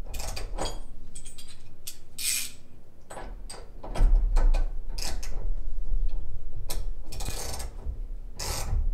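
Ratchet wrench clicking in repeated short bursts as its handle is swung back and forth, turning a 22 mm strut-nut socket to loosen a strut's top nut.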